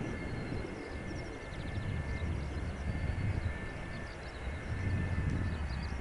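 Twin J79 turbojet engines of an F-4EJ Kai Phantom II running at low power on the ground, a low rumble under a steady high turbine whine, swelling and easing a little twice. Small birds chirp faintly over it.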